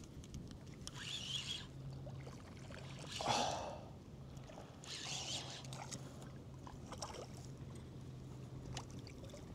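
Water splashing and sloshing in a few separate bursts as a hooked fish is played in the shallows, over a faint low steady hum.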